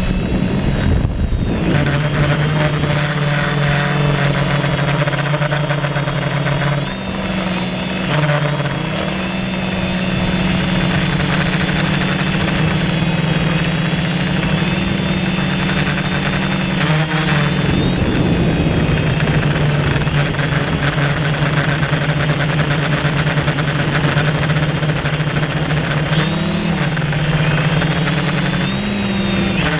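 Multirotor drone's electric motors and propellers buzzing steadily, with a thin high whine above. The motor pitch dips and rises briefly several times.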